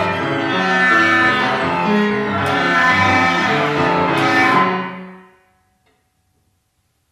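Chamber quintet of flute, clarinet, violin, cello and piano playing overlapping sustained notes of a contemporary piece. The music dies away quickly a little over five seconds in.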